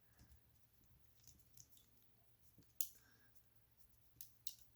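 Near silence broken by a few faint, sharp clicks, the clearest about three seconds in and a few more near the end: small metal clicks from a handheld aluminium super clamp being handled.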